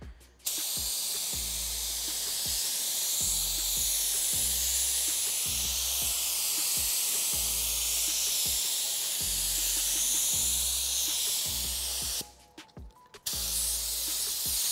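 Loud steady hiss of compressed air that starts abruptly about half a second in, stops for about a second near the end and starts again. Background music with a steady bass beat plays underneath.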